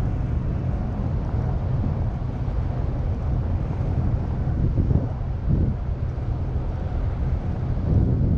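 Wind buffeting the microphone of a GoPro camera hanging from a kite: a steady low rumble, with a few gusts swelling briefly.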